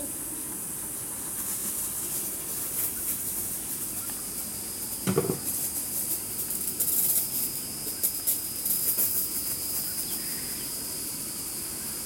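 Garden sprinklers spraying water: a steady high hiss that flutters as the spray moves, with a brief low sound about five seconds in.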